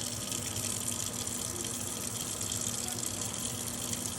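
A steady rushing hiss with a faint low hum beneath it.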